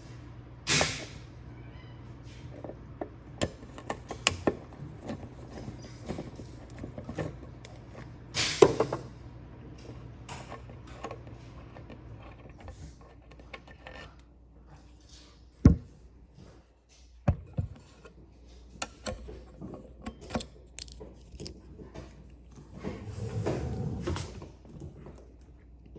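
Scattered clicks, knocks and metal clinks of small furniture hardware being handled and worked loose. A low hum runs under the first half.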